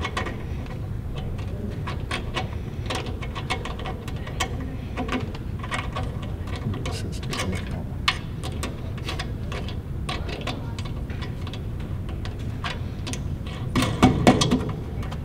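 Small irregular clicks and ticks of a dust level sensor being threaded by hand into a metal drum lid, with a louder clatter of knocks near the end, over a steady low hum.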